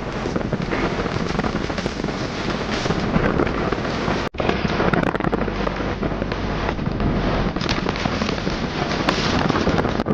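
Wind buffeting a phone microphone held at the open window of a moving car, mixed with road and engine noise, as a continuous loud crackling rush. It cuts out for an instant about four seconds in.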